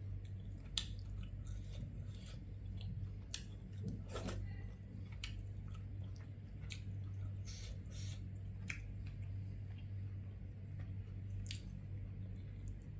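A person chewing a mouthful of rice and curry, with short wet lip-smacks and mouth clicks scattered throughout, over a steady low hum.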